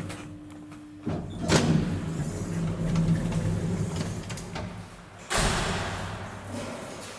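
Machinery of a 1961 Schindler elevator at work: a clunk about a second in, then a steady low electrical hum with a sharp knock. Near the end comes a sudden, loud clattering rush that fades away, like a door running or slamming.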